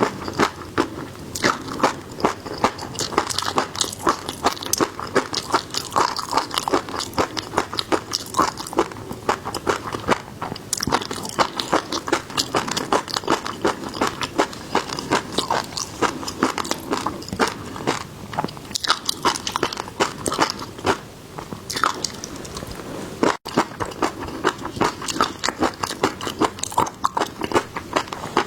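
Close-miked eating of seafood: continual wet chewing and crisp, crackling bites and crunches in an irregular rhythm, with a momentary break about 23 seconds in.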